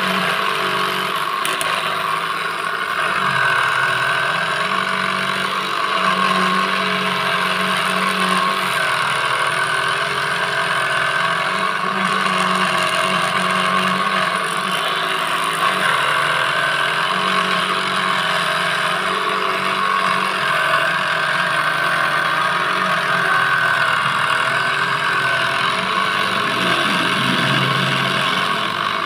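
Homemade mini jigsaw, driven by a salvaged 12 V DC motor, running steadily while its thin blade saws through PVC plate. The motor's hum drops and rises in pitch every few seconds as the cut loads it.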